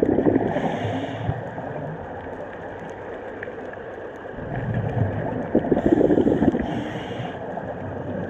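Scuba diver breathing through a regulator, heard underwater: two breaths, each with a low gurgling rumble of exhaled bubbles and a short hiss of air through the regulator.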